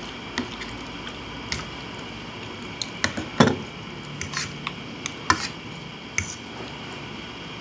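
Metal fork clinking and scraping on a ceramic plate while twirling spaghetti, with a few scattered clicks. A bit over three seconds in comes the loudest sound, as a mouthful of noodles is slurped, followed by chewing.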